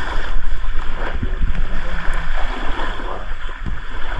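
Wind rumbling on the microphone over rushing, splashing water, in a steady noisy wash.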